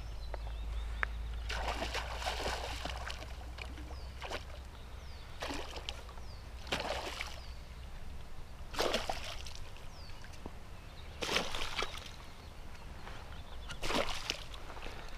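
Hooked pike thrashing and splashing at the water's surface beside a landing net, in about six separate bursts of splashing, with water sloshing as the net is worked.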